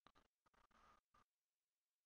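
Near silence: a few very faint, short sounds in the first second or so, then dead silence.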